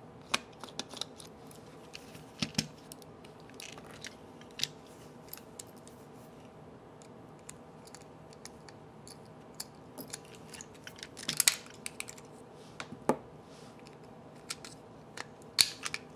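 Small irregular clicks and taps of a precision screwdriver working the tiny screws and plastic casing of a LeapFrog Tag reading pen. The clicks are sparse at first and come more often and louder in the second half, with a faint steady hum beneath.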